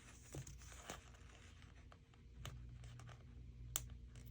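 Faint handling of a sticker sheet: a few soft ticks and light rustles as stickers are peeled and pressed on by hand.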